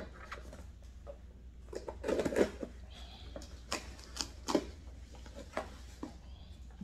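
Scissors cutting packing tape on a cardboard shipping box, with scattered clicks, scrapes and taps of the cardboard being handled; a short burst of scraping about two seconds in is the loudest.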